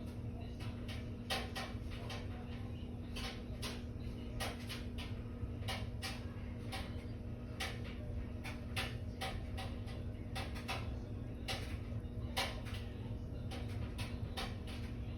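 Irregular light clicks and taps, about one or two a second, over a steady low hum.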